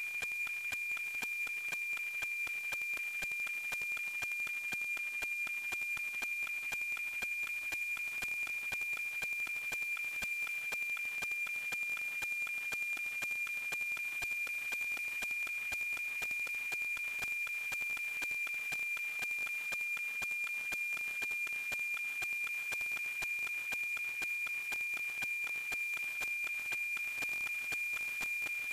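NOAA-19 weather satellite's APT image signal, FM-demodulated from an RTL-SDR receiver: a steady high tone over hiss, the 2.4 kHz image subcarrier. The signal is clear and strong.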